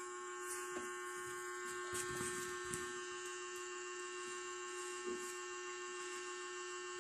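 A steady electrical hum made of several fixed tones, with a few faint soft rustles and ticks over it.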